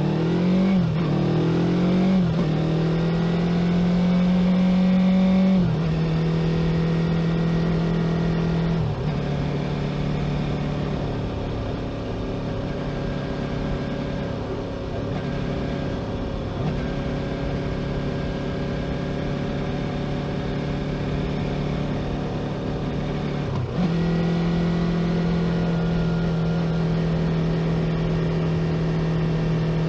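2018 Yamaha YZF-R3's parallel-twin engine heard from the riding motorcycle. In the first several seconds the revs climb and drop with gear changes. It then cruises at steady revs, until the pitch steps up suddenly near the end with another gear change.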